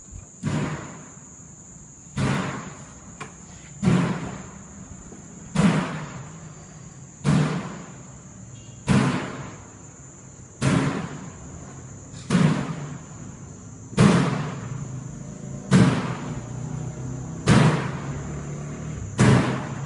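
Loud bangs at an even, slow beat, about one every 1.7 seconds, twelve in all, each with an echo dying away down a long hallway. A steady high-pitched whine runs beneath them.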